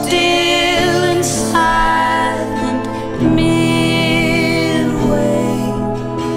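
Background music: a slow, gentle song with wavering held melody notes over sustained lower tones, with no words sung in this stretch.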